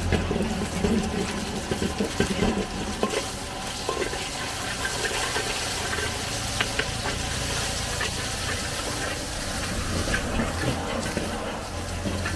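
Egg and vegetables sizzling in a hot wok over a running gas burner, with a metal spatula scraping and clinking against the wok now and then.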